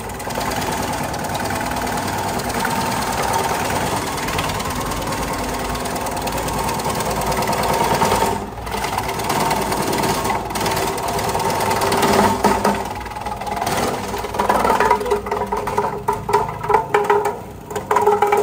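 Electric herbal-medicine slicing machine running while a woody branch is fed into it and cut into thin chips: a steady machine hum with the blades chopping through the wood. It turns choppy and uneven in the last few seconds.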